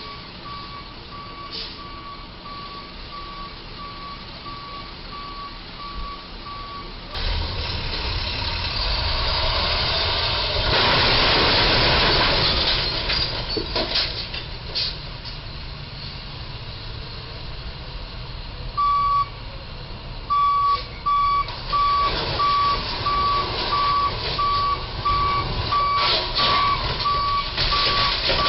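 Box truck's reversing alarm beeping evenly, about two beeps a second, as the truck backs out from under the low bridge after striking it. About seven seconds in the beeping gives way to a louder stretch of rushing noise, then resumes a few seconds before the end.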